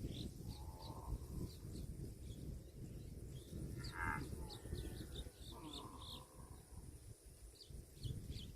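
Small birds chirping in quick, short, high notes throughout, over a low rumbling background noise, with a few brief fainter calls about a second in, around four seconds in and around six seconds in.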